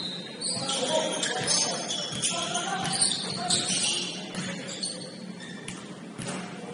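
Basketball game sound in a gym, with players moving on the hardwood court and a bell-like jingling and music in the background, marked by light clicks that recur at fairly even spacing.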